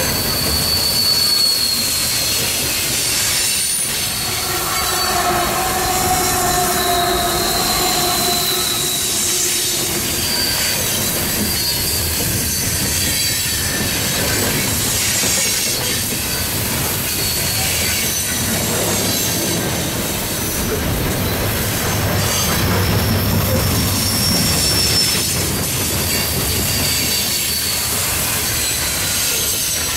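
Loaded coal train's steel hopper cars rolling past at speed: a steady rumble and clatter of wheels on rail, with wheel squeals coming and going. The squeals are high-pitched throughout, with a lower one from about five to ten seconds in.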